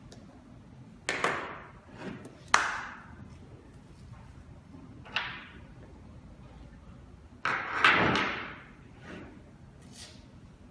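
Knocks and clatter of a door lock and a small screwdriver being handled against a wooden desk. Two sharp knocks come a little after one second and at about two and a half seconds, a softer one near five seconds, and the loudest, a longer clatter, about seven and a half seconds in.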